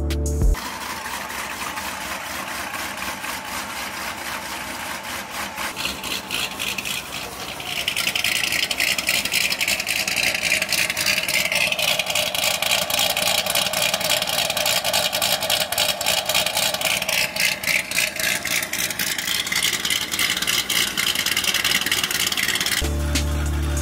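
Chevrolet C6 Corvette's V8 running at idle through its quad exhaust, a steady sound that steps up in level about eight seconds in.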